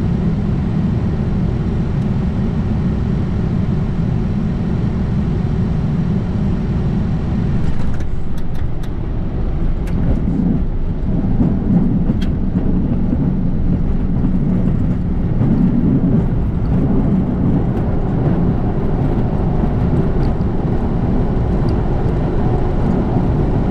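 Cockpit noise of a Falcon 900C business jet landing: a steady rush of air and engine noise over the threshold. About eight seconds in the sound changes, with a few clicks, to the low rumble of the rollout on the runway, swelling and easing a few times.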